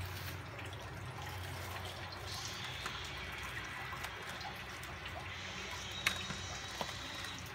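A pot of water at a steady boil, bubbling around pieces of beef pizzle, lemongrass and ginger being parboiled. A single sharp click about six seconds in.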